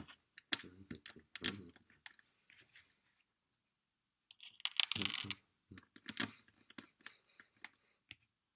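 Plastic LEGO bricks being handled: irregular clusters of small clicks and rattles as pieces are picked up, pulled off and pressed on, with a quiet gap partway through.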